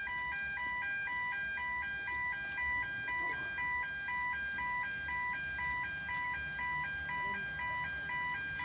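Railway level crossing warning bell sounding: an electronic two-tone signal switching between a high and a slightly lower tone about twice a second, steady and unbroken.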